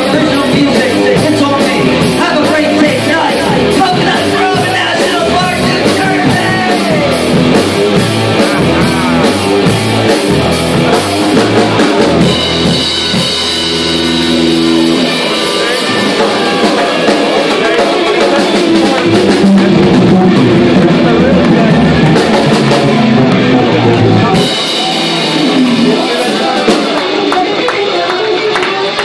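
Live rock band playing loudly: electric guitar over a drum kit keeping a steady beat. There is a long held chord about halfway through, and the low end drops away near the end.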